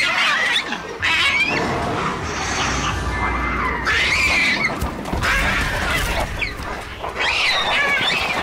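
Shrill screeching calls of feathered dinosaurs, about six cries with wavering pitch roughly a second apart, over a low rumble.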